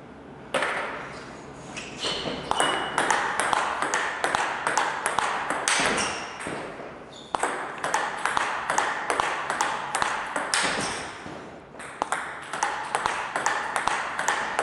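Table tennis ball clicking rapidly back and forth off rackets and table in a block-and-smash practice rally, several sharp hits a second, with short breaks between rallies.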